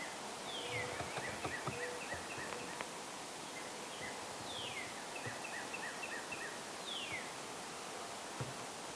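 A songbird singing two phrases, each a quick falling whistle followed by a rapid run of short, evenly spaced notes, the first about half a second in and the second about four and a half seconds in. Soft rustles and light ticks in dry leaf litter underneath, busiest in the first two seconds.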